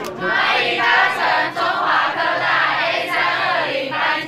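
A large group of young voices calling out together in unison, in a run of short phrases with brief breaks between them.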